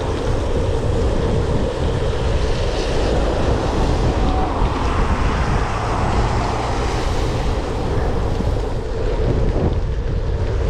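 Steady, loud wind buffeting a GoPro's microphone through its rain-saturated foam wind covers while cycling into the wind, a dull continuous rush with no clear events.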